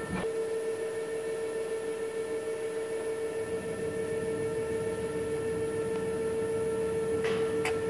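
A steady mechanical hum with one constant tone. Near the end there are two light clicks.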